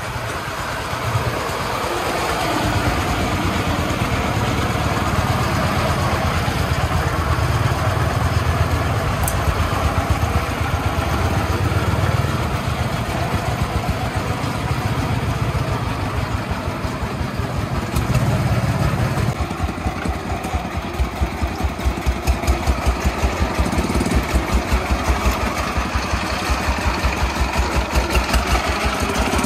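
Single-cylinder diesel engine of a công nông farm truck, rated 24 hp, running under load as the truck hauls sand. It holds a steady low drone, then from about two-thirds of the way in it chugs with a clearly pulsing, regular beat.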